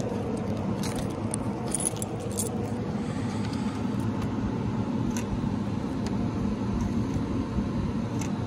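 Keys and a keycard on a lanyard jangling while the card is worked into a hotel door's card-slot lock, giving scattered light clicks and rattles in the first few seconds and one sharp click about five seconds in, over a steady fan drone.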